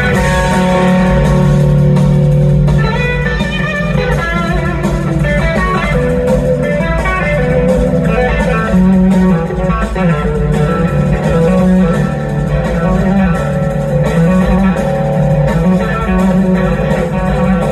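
Live band music led by an electric guitar playing melodic lead lines over a steady low bass, recorded from the audience.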